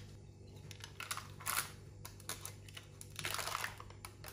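Baking parchment rustling and scraping against a glass baking dish as a baked carrot-and-egg sheet is lifted out on it, in a few short bursts, the longest about three seconds in.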